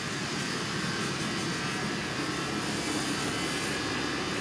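Lit fuse of a Brothers V3P Volcano ground firework burning down before the device ignites, heard as a steady rushing hiss over a low rumble.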